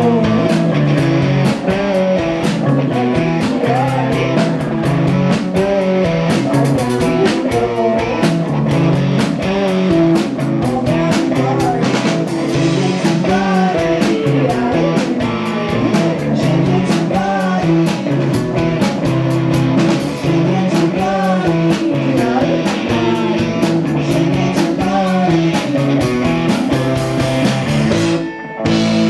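Loud live rock music: electric guitar over a steady, busy beat, with some singing. It briefly drops away near the end before starting again.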